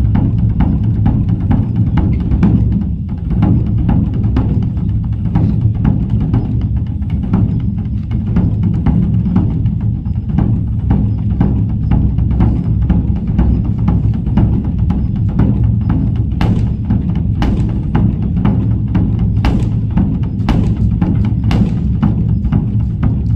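Background music with a steady drum beat and strong bass.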